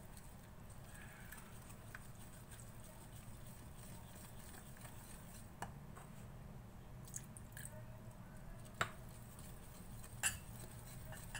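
Faint stirring of a creamy cocoa-and-milk mixture in a bowl, with a few light clicks of the utensil against the bowl about halfway through and near the end, over a low steady hum.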